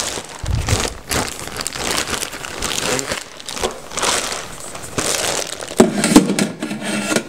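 Clear plastic packaging bags crinkling and rustling as wire air-fryer racks are unwrapped from them, with a sharp knock about six seconds in.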